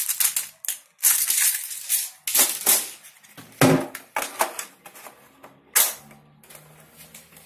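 Plastic airsoft BBs rattling as they are pushed from a speedloader tube into a plastic magazine. This is followed by a few separate sharp plastic clicks as the magazine is fitted into the rifle.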